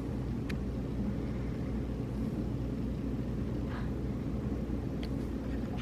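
Steady low rumble outdoors, with a few faint clicks.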